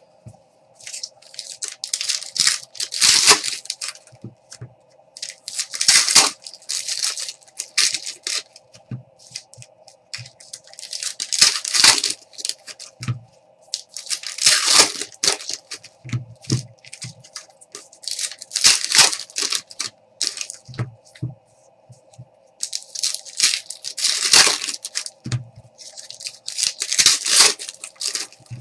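Foil trading-card pack wrappers being torn open and crinkled by hand, in repeated bursts every few seconds, with small knocks of cards being handled and set down. A faint steady hum runs underneath.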